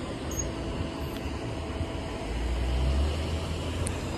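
Low rumble of road vehicles at a railroad crossing, swelling about three seconds in and then easing.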